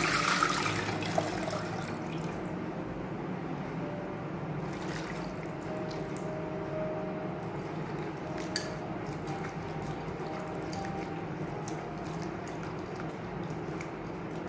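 Water poured off a bowl of cut potato sticks through a stainless steel mesh strainer, a splash lasting about a second and a half at the start. After that, hands swish the potato sticks around in the bowl of water, with small splashes and drips: the potatoes are being rinsed to wash the starch off.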